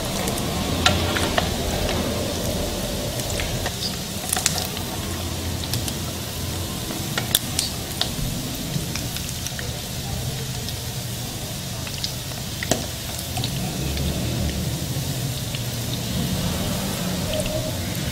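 Fish-topped bread slices shallow-frying in hot oil in a pan: a steady sizzle, with scattered sharp clicks as a metal fork turns the slices against the pan.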